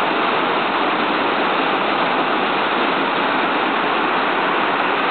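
Waterfall's water pouring and splashing in a steady, loud rush that does not change.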